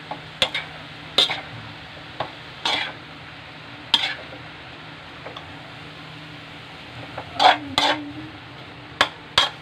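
A metal spatula scraping and clanking against a wok as vegetables and meat are stir-fried, in irregular strokes with a quieter stretch in the middle, over a steady low sizzle.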